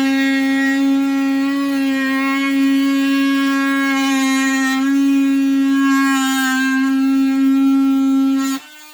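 DeWalt oscillating multi-tool running as it cuts, a loud, steady buzzing tone of even pitch. About eight and a half seconds in it suddenly drops much quieter but keeps running.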